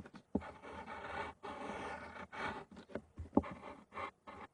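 Scraping and rubbing handling noise, broken by a few sharp clicks.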